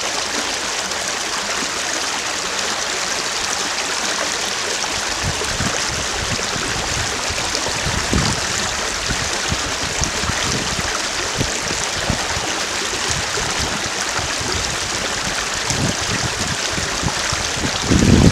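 Strong wind blowing over a field of silver grass: a steady rushing hiss, with gusts buffeting the microphone in low rumbles from about five seconds in, heaviest near the end.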